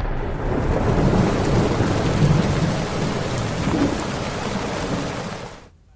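Heavy rain pouring steadily with thunder rumbling underneath, a rain-and-thunder sound effect laid under a news break graphic. It fades out near the end.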